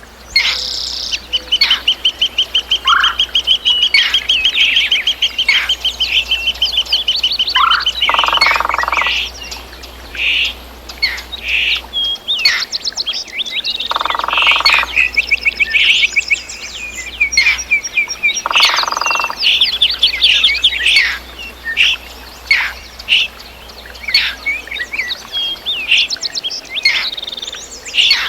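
Several songbirds singing at once, with many short chirps and whistled phrases. A long, fast trill runs through the first several seconds. A lower call sounds three times, about five seconds apart, over the chorus.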